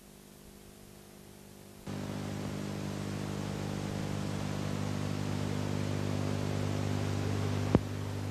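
Hiss and hum of an old film soundtrack: faint hiss at first, then about two seconds in a louder steady low hum with hiss sets in abruptly, with one sharp click near the end.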